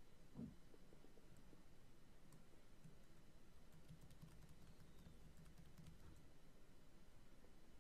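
Near silence: faint room tone with scattered soft clicks, most of them in the second half, and one brief low thump about half a second in.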